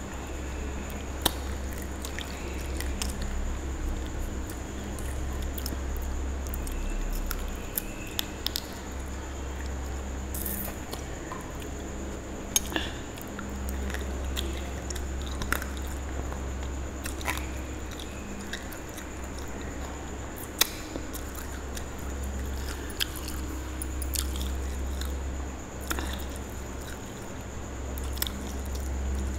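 Close-miked chewing of a mutton curry meal eaten by hand, with irregular wet smacks and clicks of the mouth and fingers. A steady low hum runs underneath.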